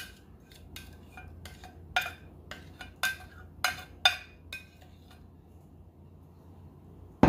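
A spoon clinking and scraping against a small dish while the last of the marinade is scraped out over a mixing bowl: about a dozen sharp, separate clinks over the first four and a half seconds.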